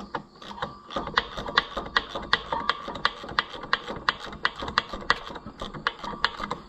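Ratchet wrench clicking steadily, a few clicks a second, as the water pump bolts are run in and snugged up.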